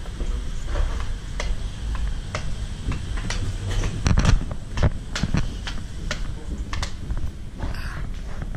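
Brisk walking footsteps, about two a second, over a steady low rumble.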